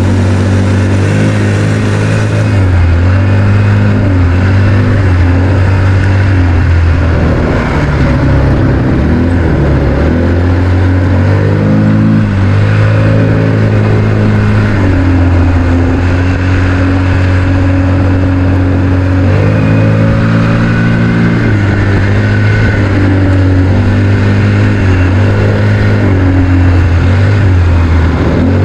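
ATV engine running under way, its note rising and falling repeatedly as the throttle is opened and eased, with a steadier stretch about halfway through.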